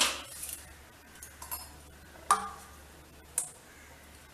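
Kitchen utensils being handled and set down: three sharp clinks and knocks from a stainless steel saucepan, steel tumblers and a tea strainer. The loudest comes about two seconds in and rings briefly.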